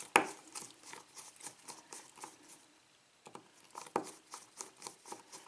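Light clicks and taps of a cylinder lock and small hand tools being handled at a bench vise: a sharp click just after the start, scattered ticks, a brief pause a little past the middle, then more clicks.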